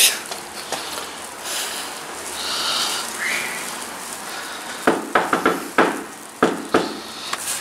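Knocking on an apartment door: a quick run of about six knocks, then two more a moment later.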